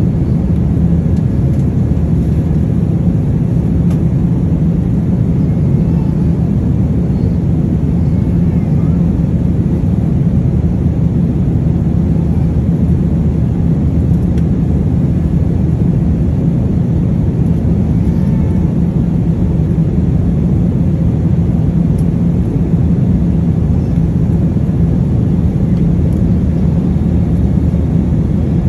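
Steady loud low rumble of an airliner cabin in flight: engine and airflow noise heard from a passenger seat.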